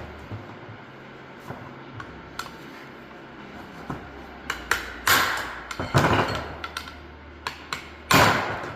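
Hammer blows on steel, striking the back of a differential stub shaft's flange studs to drive the stub shaft out of the case. The blows are irregular: a few light taps, then a cluster of hard strikes in the second half, the hardest of them ringing briefly.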